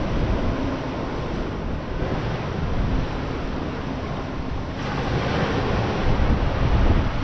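Ocean surf washing onto the shore, with wind buffeting the microphone in low rumbling gusts. About five seconds in, the hiss of the surf swells and stays louder.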